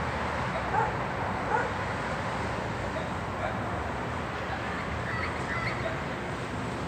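Steady traffic rumble of a city street, with a distant dog barking twice in the first two seconds and a few short bird chirps about five seconds in.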